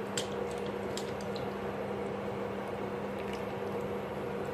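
Hot blanched spinach leaves being moved into ice water: soft wet squishing and light splashing, with a couple of small clicks in the first second. A steady low hum runs underneath.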